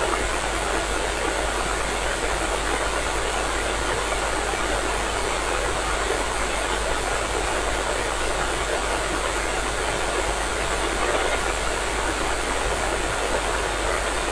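Steady hiss of radio static from a receiver tuned to the International Space Station's 145.80 MHz downlink, with no voice on the channel between transmissions.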